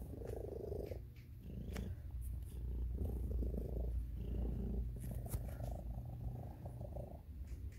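A 12-year-old domestic cat purring loudly, close up, the purr swelling and fading with each breath in and out.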